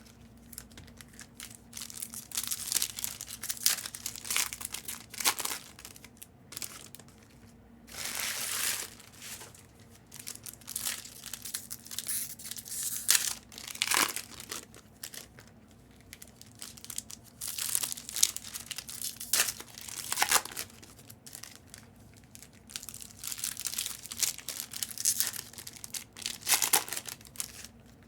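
Plastic wrappers of Panini Prizm retail card packs crinkling and tearing as packs are ripped open and handled, in irregular rustling bursts with short pauses between.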